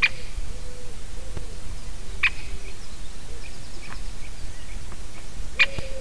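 A woodpecker giving short, sharp single calls, three of them a couple of seconds apart, at the start, about two seconds in and near the end.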